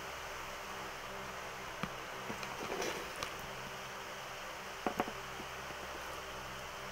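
Steady hum and hiss of an electric stand fan, with a few light clicks of a spoon and fork against a plate while eating, two sharp ones close together about five seconds in.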